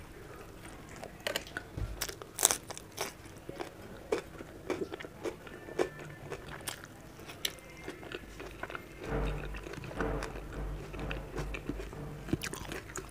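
Close-miked eating: crisp bites and chewing of raw cucumber and tomato slices, an irregular run of sharp crunches, the loudest about two and a half seconds in.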